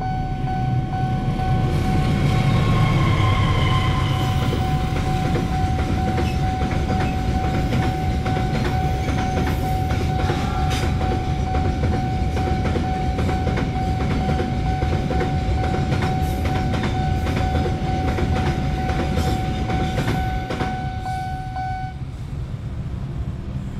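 A diesel locomotive passes, with a horn about two seconds in, followed by the rumble and rhythmic clatter of a long rake of container wagons over the rails. Under it the level crossing's warning alarm sounds one steady tone, which cuts off about two seconds before the end.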